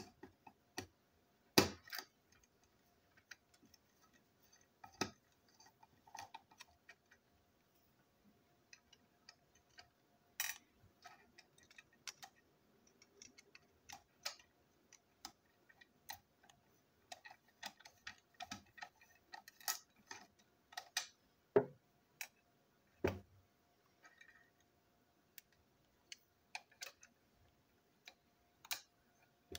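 Irregular light clicks and taps as a small screwdriver works the screws out of a TrackMaster toy wagon's plastic chassis and its small plastic parts and screws are handled.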